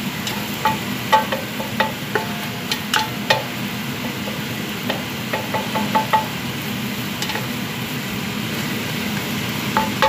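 Plastic spatula scraping and tapping against a frying pan while stirring curry paste into ginger and garlic frying in oil, over a steady sizzle. The taps come in irregular runs, most in the first few seconds and again about halfway through.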